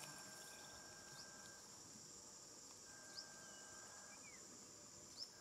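Faint rural ambience: insects droning in a steady high pitch, with a few short chirps, the clearest about three seconds in and just before the end.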